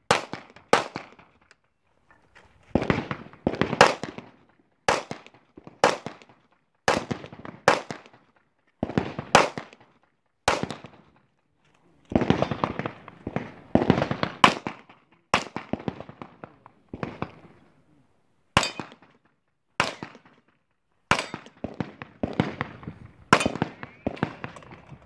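A run of pistol shots fired during a practical shooting stage, mostly about a second apart with a few quicker pairs and brief pauses, each crack trailing off in an echo.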